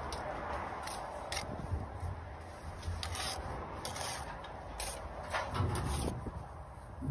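Bricklayer's trowel scraping and spreading mortar along the top of a brick course: a string of short, sharp scrapes over a softer rubbing.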